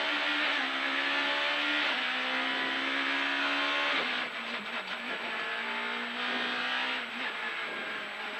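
Suzuki rally car's engine heard from inside the cabin, pulling hard under full throttle: the revs climb, drop at a gear change about two seconds in and climb again. About four seconds in the driver lifts off and the revs fall, then the engine pulls again toward the end.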